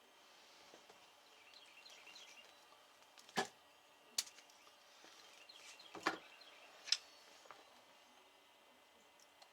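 Four sharp clicks or knocks of hard objects being handled, in two pairs about three seconds apart.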